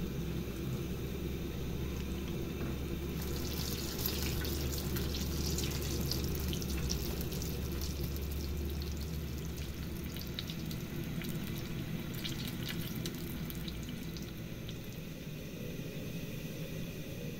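Dough pies shallow-frying in hot oil in a frying pan, a steady sizzle with many small crackles and pops that are densest in the middle and thin out near the end. A low steady hum runs underneath.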